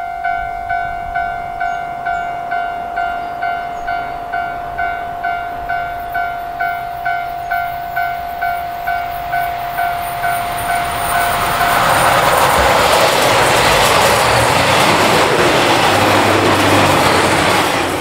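Railroad crossing alarm ringing in a steady two-tone pulse, about two rings a second. From about eleven seconds in, a KiHa 261 series 'Ozora' diesel limited express passes close by, its engine and wheels on the rails drowning out the bell until it has gone by.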